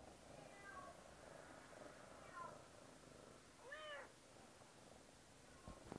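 Savannah cat giving short, soft chirping meows while being stroked: three calls, the last and clearest about four seconds in, rising then falling in pitch.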